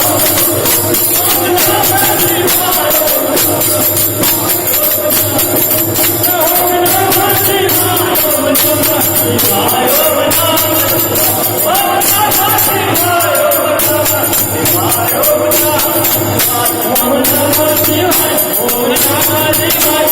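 Hindu devotional song: a voice singing a wavering melody over jingling hand percussion.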